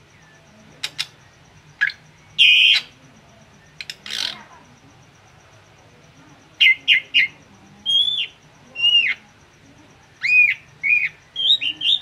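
Caged drongo calling: a few sharp clicks and a harsh, rasping note in the first few seconds, then a string of short, clear whistled notes that come faster near the end.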